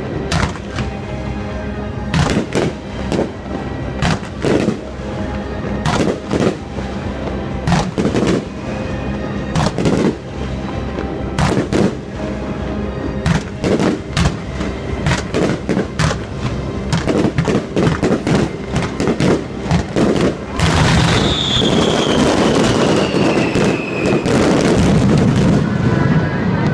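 Aerial fireworks bursting in a rapid, overlapping run of booms and bangs. From about twenty seconds in this turns into a steadier dense rush of noise, with a whistle that falls in pitch.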